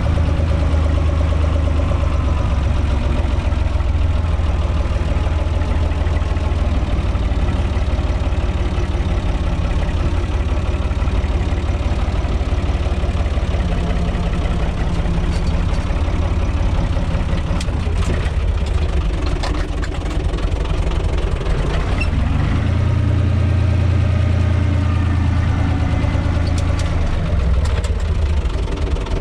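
UTB 445 tractor's four-cylinder diesel engine running steadily while tilling, heard from inside the cab. Its note shifts to a deeper, stronger hum about two-thirds of the way through.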